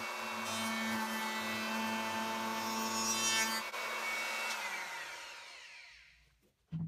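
Handheld router with a round-over bit cutting along a hardwood benchtop edge, its motor whining steadily. At about 3.7 s it is switched off and its whine falls in pitch and fades as the motor spins down; a short knock comes at the very end.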